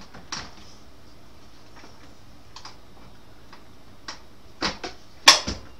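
Scattered light clicks and knocks of a graphics card being handled and lined up with its slot in a PC case, with a couple of louder clicks near the end, the sharpest just before it ends.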